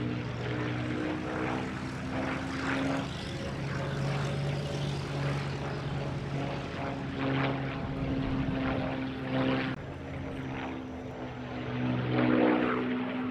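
A WW2 piston-engined fighter flying a display, with a steady propeller and engine drone that shifts in pitch several times as it moves about, loudest near the end.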